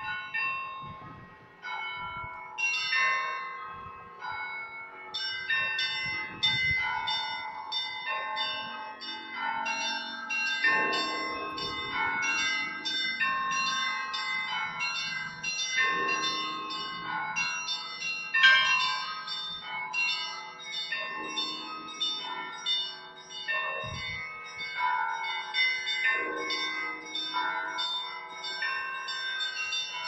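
Russian Orthodox monastery bells ringing a peal for the all-night vigil: deeper bells struck every few seconds under quick, overlapping strokes of smaller bells. The ringing is sparser at first and becomes a dense, rapid run from about five seconds in.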